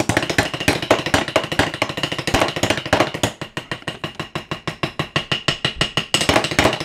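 Fast improvised drumming with a pair of kitchen utensils used as drumsticks on a kitchen countertop and pans: a steady stream of sharp wooden clacks and knocks, many strikes a second.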